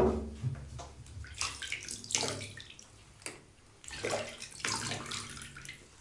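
A sharp knock at the start, then water splashing in a bathtub in several short bursts as hands wet a cat.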